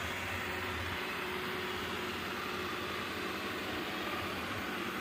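Ecovacs DEEBOT N79S robot vacuum running: the steady noise of its suction motor and brushes, with a faint steady tone joining about two and a half seconds in.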